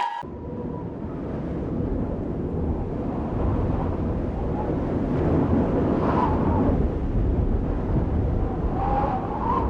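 Steady, low rumbling ambient noise of a large hall, with faint distant voices about six seconds in and again near the end.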